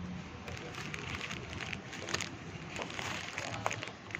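Steady rain falling, with scattered drops ticking on hard surfaces.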